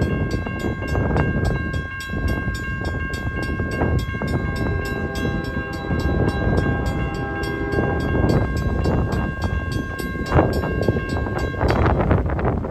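A CSX freight locomotive sounding a long, steady horn blast as the train approaches, over a heavy low rumble from the train and wind. The horn cuts off near the end.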